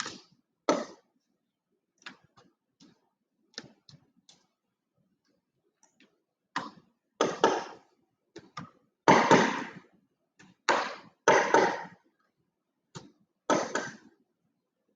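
Small nails being pulled one by one out of a glued model piece and the board beneath it: a string of light clicks and several short scraping pulls, the louder ones coming in the second half.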